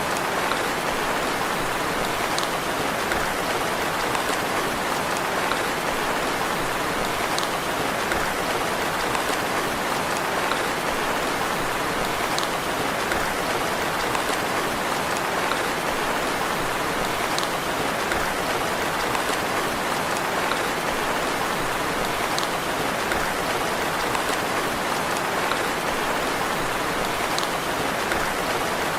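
Steady rain falling, an even hiss with faint light ticks every few seconds.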